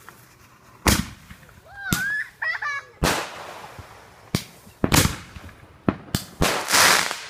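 Consumer fireworks going off: a series of sharp bangs as aerial shells launch and burst, about seven in all, with a longer hissing crackle near the end.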